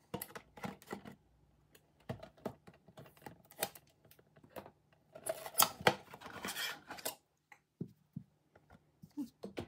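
Cardboard box being handled and opened and a plastic ground-meat masher taken out of it: a run of light taps, scrapes and rustles, busiest about five to seven seconds in.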